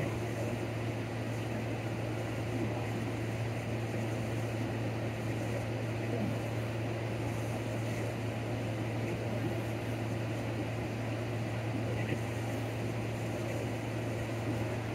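Steady low mechanical hum with an even rush of air behind it, like a building's ventilation running, unchanging throughout.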